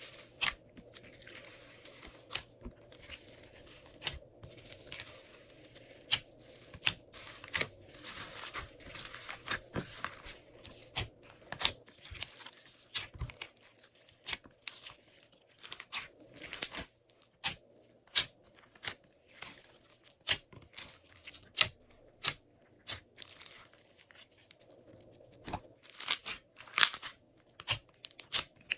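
Glossy slime being worked by hand, giving many sharp, irregular sticky clicks and crackles.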